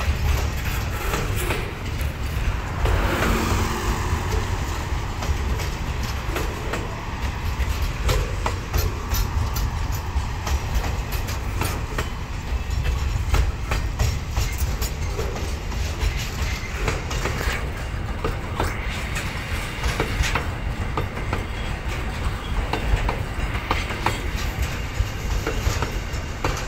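Qube freight train rolling past: a steady heavy rumble with wheels clacking over rail joints. A short falling tone sounds about three seconds in.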